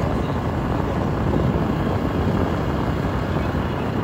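Steady rush of wind and road noise while riding along in a moving open vehicle, the wind buffeting the microphone.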